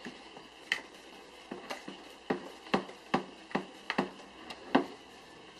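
Wire whisk beating thick icing in a plastic mixing bowl, the whisk clacking against the bowl's side in an irregular run of knocks, about two a second.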